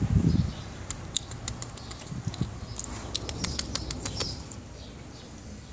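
Border Collie licking and smacking its lips: a run of small wet clicks, preceded by a brief muffled low noise right at the start.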